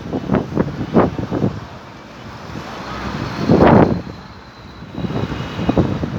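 Wind gusting against the microphone in uneven blasts, the strongest about three and a half seconds in.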